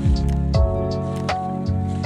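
Lo-fi background music with a steady beat, pitched chords and bass notes.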